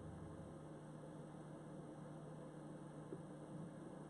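Faint steady electrical hum and hiss of the recording's noise floor after the song has ended, with a faint tick about three seconds in.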